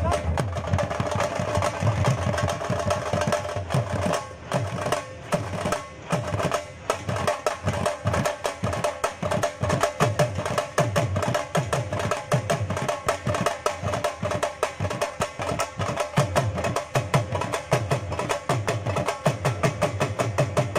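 A large group of Punjabi dhol drums played together in a fast, steady rhythm of dense drum strokes.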